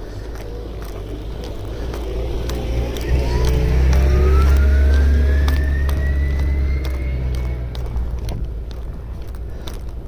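A heavy motor vehicle rumbles close by, swelling to its loudest about halfway through and then fading, with a whine that rises steadily in pitch as it speeds up. Footsteps crunch in snow throughout.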